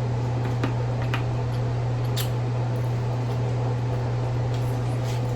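A steady low hum with a few faint, irregular clicks of crawfish shells being handled and cracked during eating.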